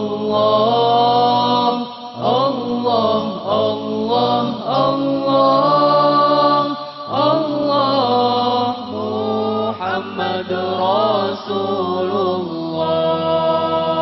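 Male vocalists chanting an Arabic sholawat devotional song without drums, in long wavering, drawn-out phrases, settling into steadier held notes near the end.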